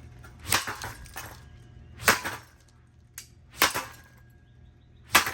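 An aluminium broom handle struck hard against a Heritage five-blade ceiling fan, about four heavy blows roughly a second and a half apart with lighter knocks between them.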